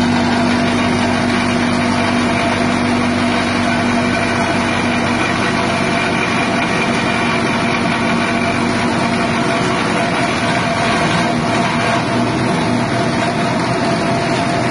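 Grass chopper machine driven by a 6.5 HP petrol engine, running steadily at speed while chopping elephant grass.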